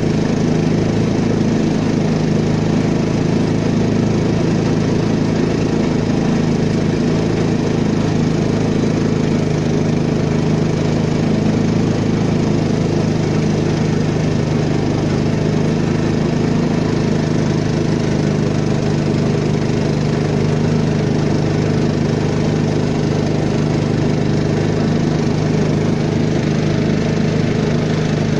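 A peque-peque boat's small single-cylinder long-tail engine runs at a steady, unchanging speed and pitch while the boat travels upriver or downriver.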